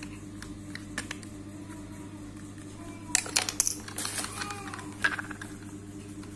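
Hard plastic parts of a children's tricycle clicking and knocking as the footrest is handled and fitted: a single click about a second in, then a quick run of clicks and knocks around three seconds in, and another knock near five seconds.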